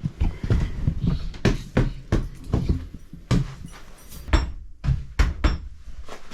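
Irregular knocks and clunks, a dozen or so in quick uneven succession, of things being handled and set down.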